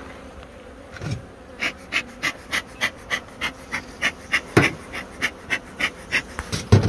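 Bellows bee smoker puffing in a steady rhythm, about three short puffs of air a second, as smoke is blown over an open hive's frames to calm the bees. A hum of bees sits faintly underneath, and there are two low knocks, one midway and one near the end.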